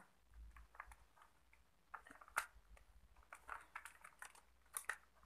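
Faint plastic clicks and handling sounds from a Fujifilm S9900W camera as its battery compartment door is closed over the AA batteries. The sharpest click comes about two and a half seconds in, with a couple more near the end.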